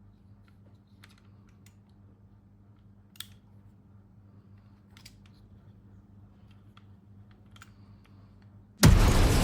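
Faint, scattered small clicks and taps of hard plastic being handled, with one sharper click about three seconds in. Near the end a sudden loud, noisy sound cuts in.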